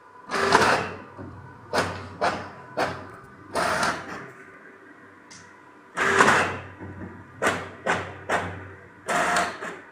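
Brother MFC-J3520 inkjet all-in-one printing: the print-head carriage sweeps across the page in about ten short passes, some in quick succession, with a quieter pause near the middle while the paper advances.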